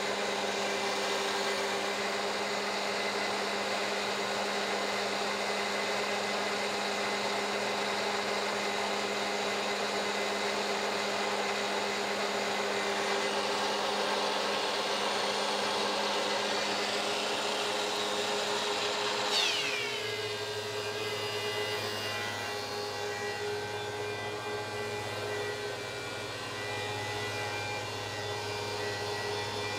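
DeWalt DW735 thickness planer with a Shelix helical cutterhead and its chip impeller removed, running steadily while planing a board. About two-thirds through there is a sharp knock and a falling whine, after which the machine runs a little quieter with a lower hum as the load changes.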